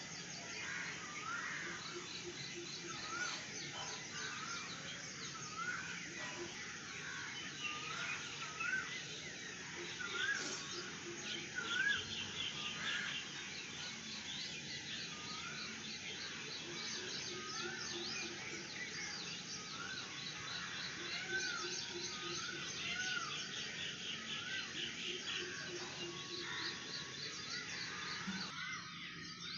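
Several birds calling and singing together in a dawn chorus. One bird repeats a short rising-and-falling chirp about once a second while others add rapid high trills over a faint steady background.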